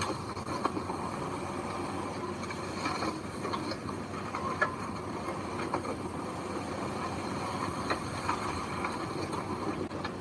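Heavy earthmoving machinery running steadily, with scattered sharp metallic clanks and knocks.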